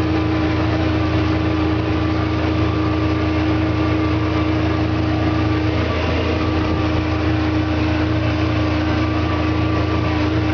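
Vehicle engine idling with a steady, unchanging hum.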